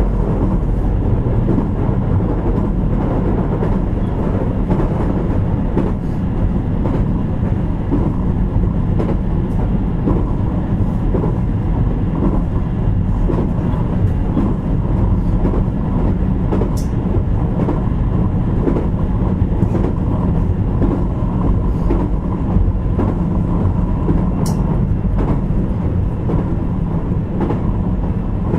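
JR Kyushu 817 series electric train, motor car KuMoHa 817-1009, running steadily, heard from inside the car: a continuous rumble of wheels on rail under a faint steady motor tone. Two short, sharp ticks come through, partway in and again about eight seconds later.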